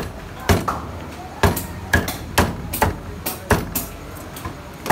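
Meat cleaver chopping a cooked chicken piece on a thick wooden chopping block: sharp knocks of the blade striking the wood at an uneven pace, about two a second.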